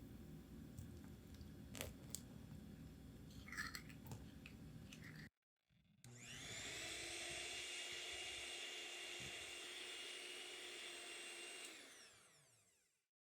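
Electric hand mixer running: first beating in a bowl with a few clicks of the beaters, then, after a short break, spinning up to a steady high whine and winding down near the end.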